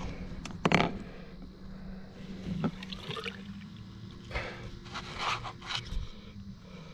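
Water sloshing and splashing at the side of a boat as a large flathead catfish is held in the river for release. There is a sharp knock about a second in and irregular splashes later, over a steady low hum.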